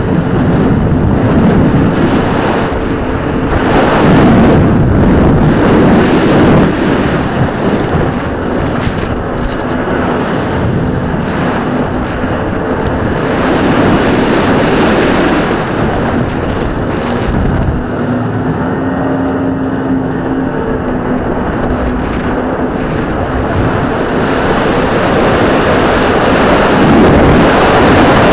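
Jet ski running under way across choppy water, its engine a faint steady hum under loud rushing wind and water noise on the microphone.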